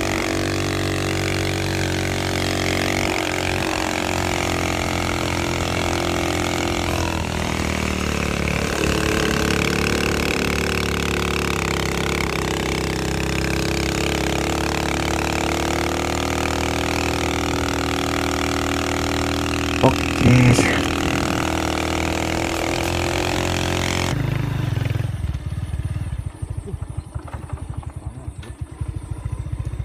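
Motorcycle engine running steadily under a passenger riding pillion, with wind and road noise. A brief louder sound comes about twenty seconds in. After that the sound turns quieter and rougher near the end.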